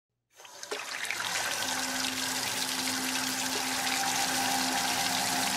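Water running steadily, fading in just after the start, with a low steady hum joining about a second and a half in.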